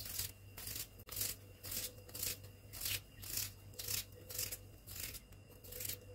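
Kitchen knife slicing thin rounds off a peeled raw potato held in the hand, one short cutting stroke about twice a second.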